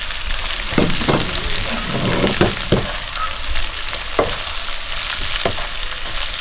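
Freshly added sliced onions sizzling in hot oil with a steady hiss, while a wooden spatula stirs them. About six short scrapes of the spatula against the pan sound through the sizzle.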